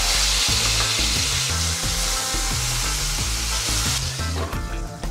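Masala-coated fish slices shallow-frying in hot oil in a kadai: a steady, loud sizzle that stops about four seconds in. Background music runs underneath.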